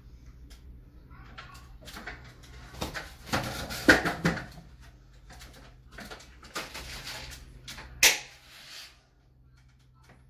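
Clicks, knocks and rustles from a roller blind being fitted at the top of a window, as its roller and headrail are handled and pushed into their brackets. The two loudest knocks come about four and eight seconds in.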